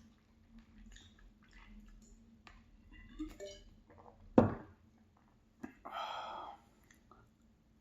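Eating sounds at a plate: scattered small clinks of cutlery on dishes and quiet chewing. There is one sharp knock about four and a half seconds in, the loudest sound, and a short noisy sound just before six seconds in.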